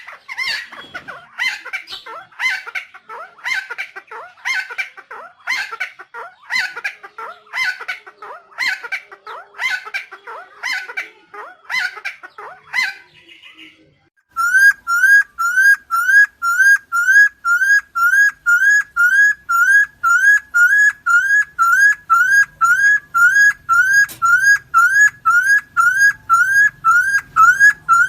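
Helmeted friarbird (Philemon buceroides) calling: harsh calls repeated about one and a half times a second. After a brief break about halfway through, this gives way to a rapid, very even series of short rising whistled notes, a little over two a second.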